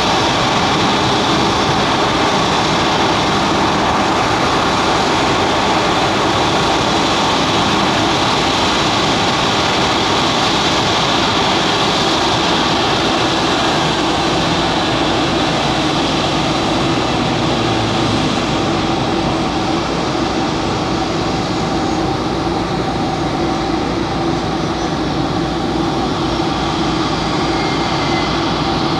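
Diamond DA-42 Twin Star light twin's two propeller engines running steadily, a constant drone with a steady hum.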